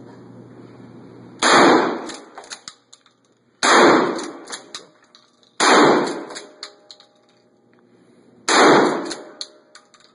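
Mossberg 500 pump-action shotgun firing four loud shots about two seconds apart, each followed by a decaying echo and a few sharp clacks as the pump is worked to chamber the next shell.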